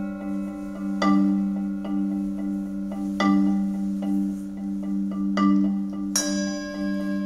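Recorded mallet-percussion music: slow, ringing struck notes about every two seconds over a steady low held drone, with one bright, shimmering bell-like strike about six seconds in.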